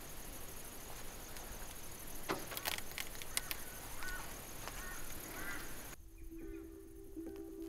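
Outdoor ambience with a couple of sharp clicks and a few short bird chirps. About six seconds in, the background noise drops away and a steady low musical note comes in as background music starts.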